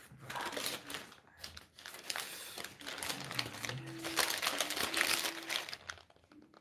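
Paper burger wrapper crinkling and rustling as it is pulled open by hand around a burger, in irregular bursts that stop shortly before the end.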